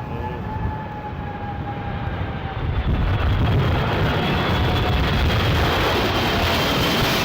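Airliner's jet engines on approach: a steady whine that grows louder about three seconds in as the aircraft comes nearer. Strong wind rumbles on the microphone underneath.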